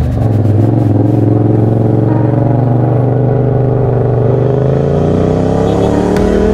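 Motorcycle engine on the move, the revs falling for the first few seconds as it slows, then climbing again as it pulls away.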